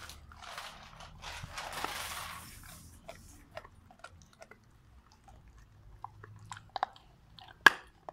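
A Rottweiler gnawing a raw meaty bone: a few seconds of steady chewing, then scattered clicks of teeth on bone, and one loud crack near the end.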